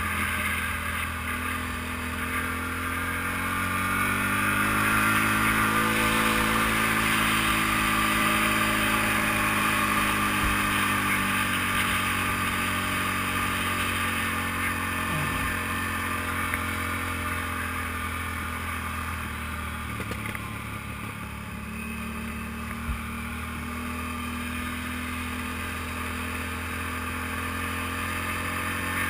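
ATV engine running while driving along a gravel trail, heard from on board; the engine pitch rises a few seconds in, then eases back down and holds steady.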